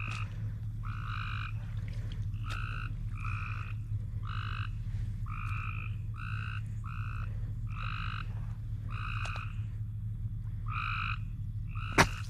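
A frog calling over and over, short calls about half a second long coming roughly once a second. A single sharp knock comes near the end.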